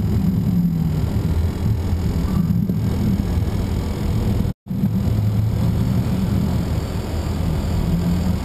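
Cockpit noise of a Learjet 45XR rolling along the runway: a steady low rumble from its twin Honeywell TFE731 turbofans and the wheels on the runway. It breaks off to silence for an instant about halfway through.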